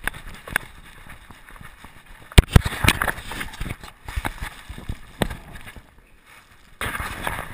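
Rubbing, scraping and knocking on a camera strapped to a dog's back as a man's hand rubs and pats the dog, with one sharp knock about two and a half seconds in and a longer burst of rubbing near the end.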